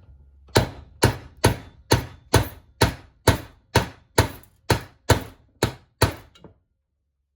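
Hammer striking a socket on an extension about thirteen times at a steady rate of roughly two blows a second, driving a bearing into a Honda TRX450R engine case; the blows stop once it is seated.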